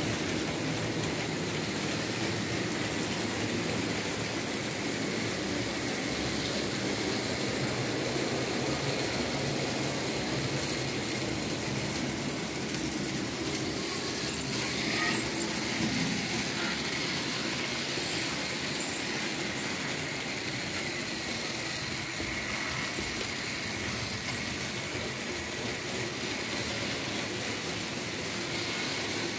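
Märklin H0 model trains running on the layout: small electric motors whirring and wheels rolling along the track in a steady noise.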